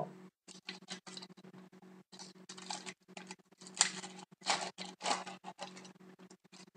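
Foil trading-card pack being torn open and its wrapper peeled back, giving irregular crinkling and crackling, loudest in a run of crackles in the middle.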